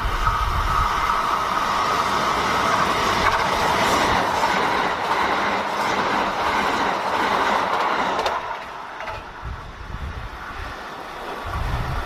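A Kintetsu electric train passing close by at speed: a steady, loud rush of wheels and running gear on the rails that dies away about eight seconds in.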